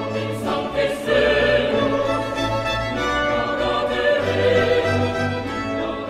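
Choral music: a choir singing held chords.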